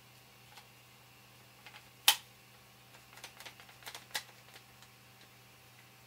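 Plastic clicks and knocks from handling a quick-release bar clamp fitted with 3D-printed 90-degree jaw attachments: one sharp snap about two seconds in, then a string of lighter clicks and taps.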